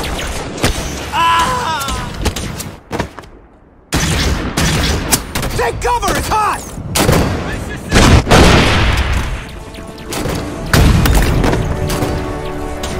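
Sound-effect gunfire: repeated rifle shots in rapid bursts with brief shouted voices, broken by a short drop to near silence about three seconds in. About eight seconds in a loud explosion hits and fades, and near the end music with held tones takes over.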